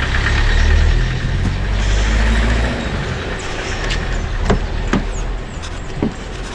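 A van's engine rumbling as it drives past close by, fading after two or three seconds, followed by a few sharp clicks and knocks from a car door being opened and got into.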